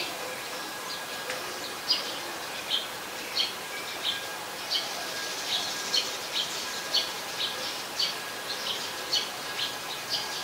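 Eurasian tree sparrow chirping: short, sharp chirps repeated over and over, about two a second.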